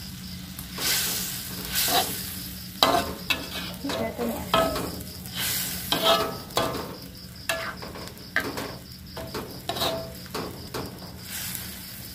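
Metal spatula scraping and stirring sliced mushrooms in chili sauce around a wok, with the sizzle of the frying underneath. The scrapes come irregularly, a dozen or so, some with a short metallic ring from the wok.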